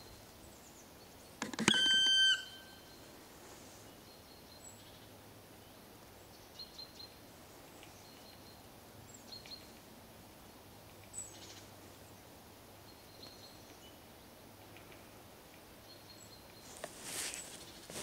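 Black woodpecker giving one loud, drawn-out call on a steady pitch about a second and a half in. Otherwise faint chirps of small birds, and a short rustling noise near the end.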